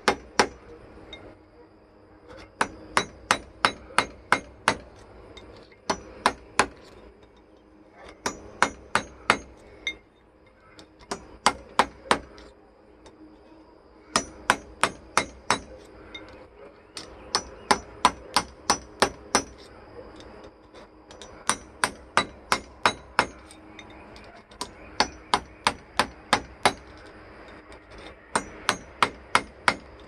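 Hammer striking a metal pin against the stator inside an antique Westinghouse table fan's motor housing, held in a vise, to drive the stator out. Runs of five to seven sharp metallic blows, about four a second, with short pauses between the runs.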